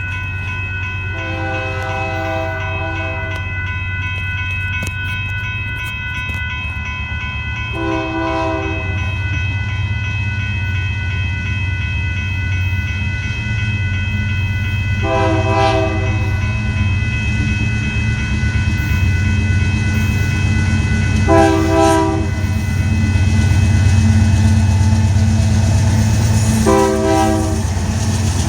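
Union Pacific freight locomotive's air horn sounding five separate chord blasts, the first about two seconds long and the others about a second each, over the steady rumble of the diesel locomotives. The rumble grows louder about halfway through as the train draws closer and passes.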